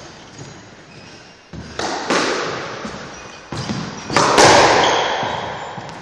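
Squash ball being struck by racquets and hitting the court walls: four sharp cracks, each with a long echo off the walls, the loudest about four seconds in.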